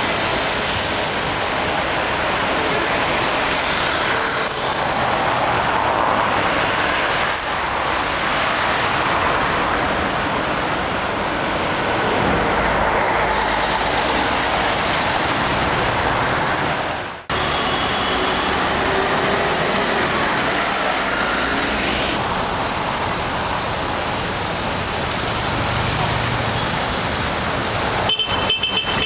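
Busy city road traffic: cars, motor scooters and a tour coach passing, a steady mix of engine and tyre noise. The sound drops out for an instant about two-thirds of the way through.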